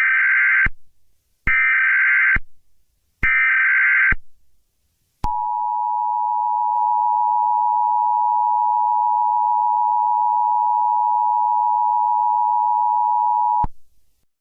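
Emergency Alert System alert tones: three short bursts of SAME header data, each a harsh digital screech under a second long. About five seconds in comes the two-tone EAS attention signal, a steady blaring tone held for about eight seconds that cuts off sharply.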